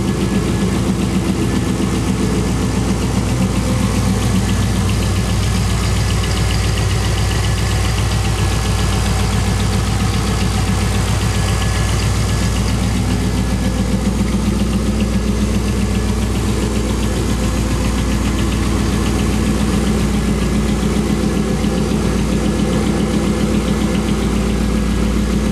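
2001 Chevrolet Camaro SS's LS1 V8, fitted with long-tube headers, an off-road Y-pipe and an SLP Loudmouth exhaust, idling steadily.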